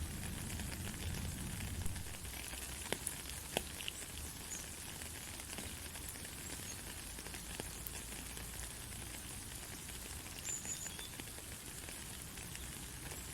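Steady rain falling: an even hiss of drops, with a few sharper single drop taps about three seconds in.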